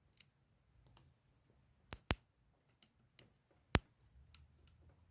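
Sharp metal clicks of a thin lock pick working the pins through the warding of an antique Yale 905 1/2 push-key padlock: two clicks close together about two seconds in and another just before four seconds, with faint ticks between.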